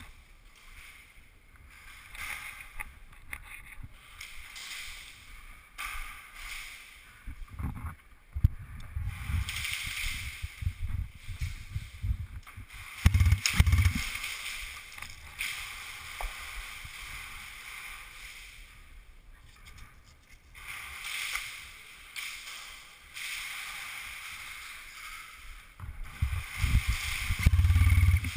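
Handling noise from a body-worn camera as an airsoft player moves and turns with a rifle: rustling and rumbling, with scattered sharp clicks and knocks, and louder bumping near the end.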